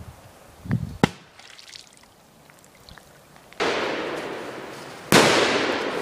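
Two firecracker (Polenböller) blasts about a second and a half apart, each a sudden bang followed by a long fading echo; the second is louder. Two faint clicks come before them.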